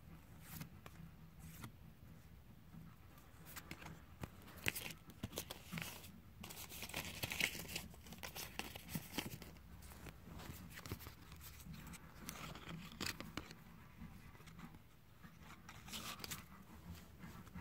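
Battle Spirits trading cards being handled and flipped through: light card slaps, slides and rustles, busiest a few seconds in.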